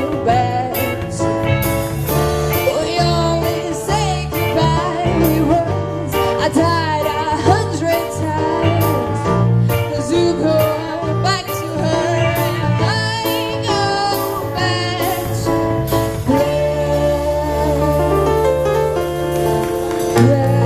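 A live band playing a song, with a singer's voice over bass, drums and held chords.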